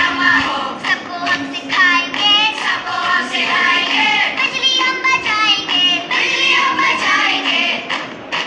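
A group of girls singing a song together, with a steady low tone held beneath the voices.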